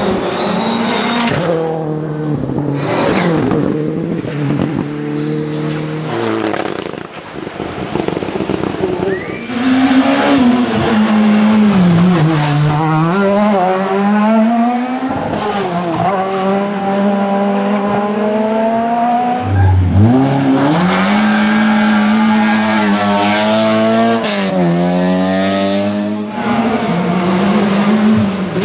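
Rally cars at full throttle on a special stage, one after another. Engine pitch climbs and drops sharply through gear changes and lifts for corners.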